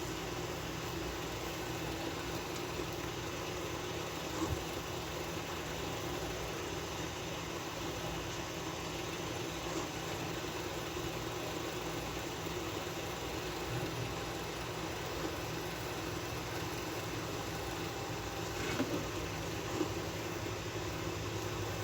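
Union automatic washing machine running its drain and spin cycle: a steady motor hum with a few faint knocks. Its repaired control board is now driving the machine normally.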